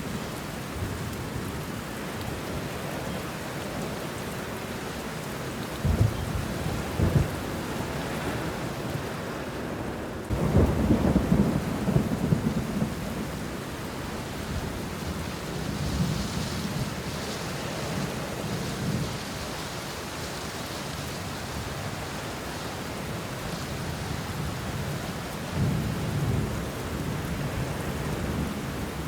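Steady rain falling on banana leaves and bushes, with rolls of thunder: a louder crack and rumble about a third of the way in, and smaller rumbles before it and near the end.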